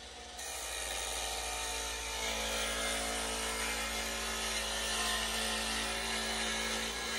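Wood lathe running while a turning gouge cuts along a spinning canary wood blank: a steady hiss of shavings over the motor's hum, starting about half a second in. These are the last roughing passes, with the blank nearly round.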